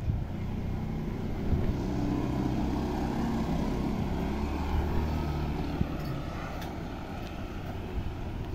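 A motor vehicle's engine droning, swelling about two seconds in and fading again, over a steady street hum.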